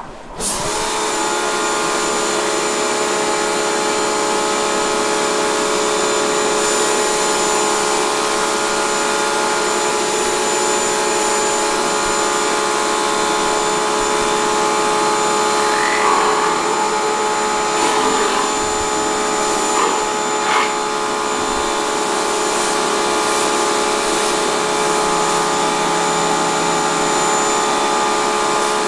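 Pressure washer running with a rotary surface-cleaner attachment spraying a concrete floor: a steady motor whine over the hiss of water jets, starting suddenly about half a second in. A few brief knocks come about halfway through as the cleaner head is moved about.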